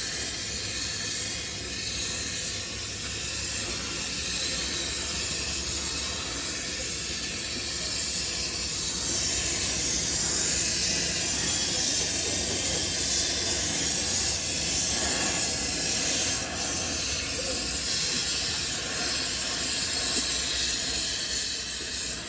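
A steady, loud hiss with a low rumble underneath, cutting off abruptly at the end.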